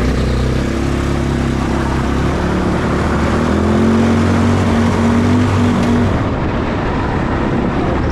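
Car engine pulling away and accelerating gently, its pitch rising slowly for about six seconds before easing off, over a steady rush of tyre noise on the snow-covered road.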